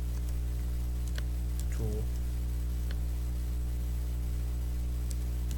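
Steady electrical hum on the recording, with a few faint keyboard clicks as text is typed into a word processor. A brief vocal sound comes about two seconds in.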